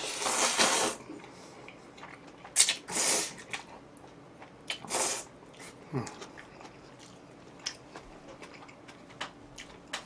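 Jjajang instant noodles being slurped in three long pulls in the first five seconds, then a shorter one, followed by quieter chewing and small clicks.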